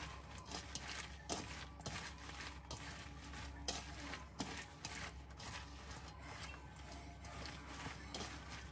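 Hands tossing and rubbing cabbage leaves in red pepper seasoning inside a stainless steel colander: crinkling, squishing leaves with many irregular light taps and scrapes against the metal.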